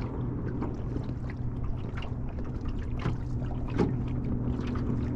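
A 36-volt Minn Kota Ulterra 112 electric trolling motor hums steadily as it holds the boat on spot lock. Small water slaps against the hull and wind noise run under it.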